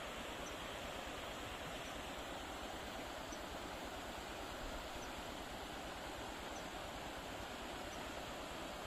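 Fast-flowing, muddy stream rushing over rocks and small rapids: a steady, even rush of water.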